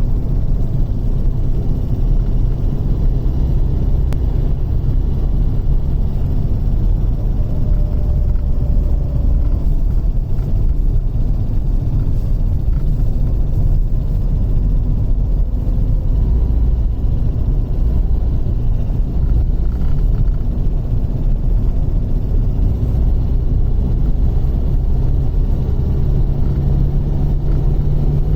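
Lada Kalina driving, with steady engine and road rumble and an extraneous noise that the owner cannot explain.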